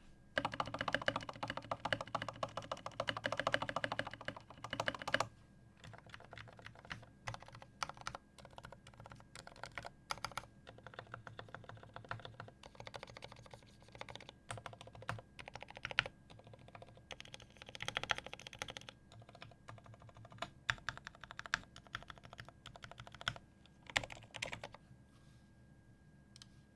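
Typing on a custom mechanical keyboard: a Velocifire KK75 with an aluminium plate, lubed ZealPC Roselios linear switches, greased Durock V2 stabilizers and pudding keycaps. A dense, fast run of keystrokes fills the first five seconds, then the typing turns slower and uneven, with short pauses.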